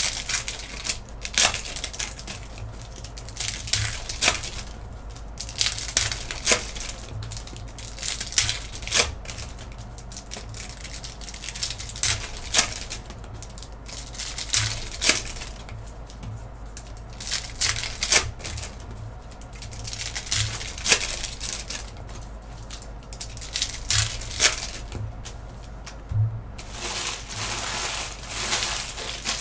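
Foil trading-card pack wrappers crinkling and tearing as packs are ripped open by hand, with cards rustling, in irregular sharp crackles throughout.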